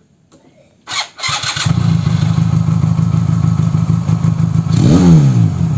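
Custom twin-cylinder engine of a Honda street cub motorcycle starting about a second in and then idling steadily. Near the end it is revved once, the pitch rising and falling back.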